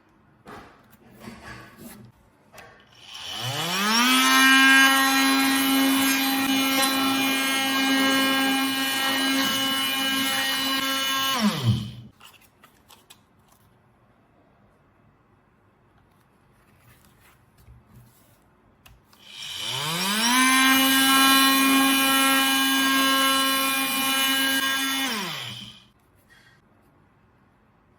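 Oscillating multi-tool with a Starlock sanding attachment, switched on twice. Each time it winds up in pitch to a steady, high buzz and sands wood for several seconds, then winds down. Light taps and handling clicks fall in the pauses.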